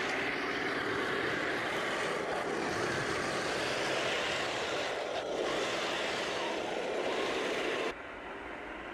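A 1/16 Heng Long Challenger 2 RC tank driving close by over mud and grass: steady mechanical running noise from its electric drive, metal gearboxes and metal tracks. About eight seconds in, the noise drops suddenly to a quieter, steadier hum with the tank far off.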